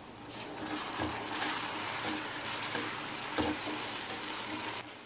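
Ginger-garlic paste sizzling as it hits hot oil and onions in a metal kadai, stirred with a slotted ladle that knocks against the pan a couple of times. The sizzle starts a moment in and dies down shortly before the end.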